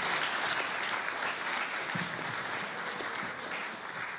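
Audience applauding at the end of a speech: a dense, steady clapping.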